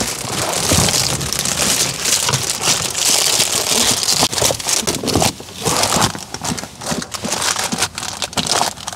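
Crinkling and rustling of foil-faced insulated window covers being handled and fitted into a car's windows, with many small knocks and scrapes.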